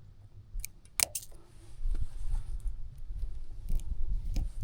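Cutters snipping the plastic sleeve off a fan-motor wire: a couple of sharp snips about a second in, then a few small clicks of handling over a low rumble.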